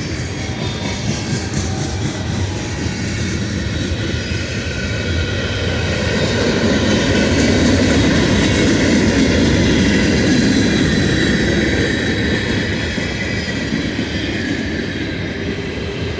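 Norfolk Southern local freight train led by a GE Dash 9 diesel locomotive, rolling past. Its steady rumble swells to its loudest about halfway through, then eases off.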